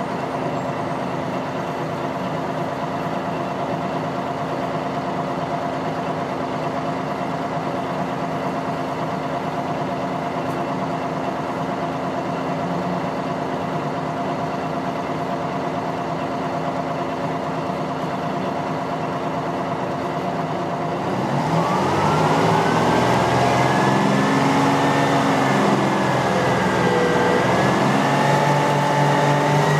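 Inside a GM New Look transit bus, its two-stroke Detroit Diesel V6 idles steadily while the bus stands still. About two-thirds of the way through it revs up as the bus pulls away: louder, its pitch rising, dipping once at a gear change, then rising again.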